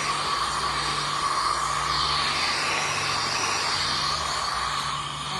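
Self-service car wash pressure washer spraying steadily: a constant hiss of the jet with a steady low hum underneath.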